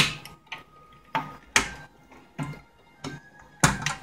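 Pressed-steel fender of a 1958 Tonka toy truck clicking and tapping against the steel body as it is worked into its slots: about ten sharp, irregular metallic clicks over a few seconds.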